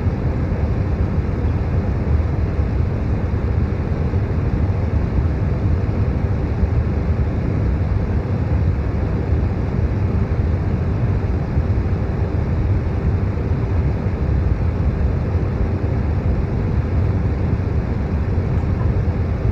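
Electric fan noise layered with brown noise: a steady, deep, even rush with a faint constant hum above it, unchanging throughout.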